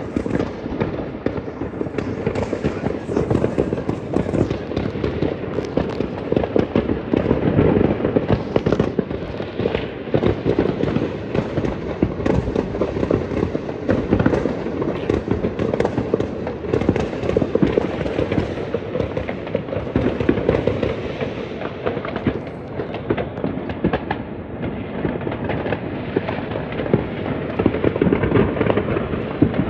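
A fireworks display going off in a dense, continuous barrage of bangs and crackles, many bursts a second with no pause.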